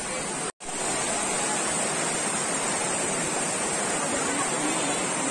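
Steady rush of water from a small jungle waterfall and the shallow stream tumbling over rocks below it. It cuts out for a split second about half a second in, then carries on unchanged.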